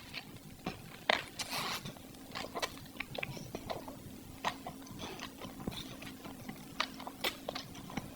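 Close-miked eating sounds: irregular wet mouth clicks and smacks of someone chewing sauce-dipped food, over a faint steady hum.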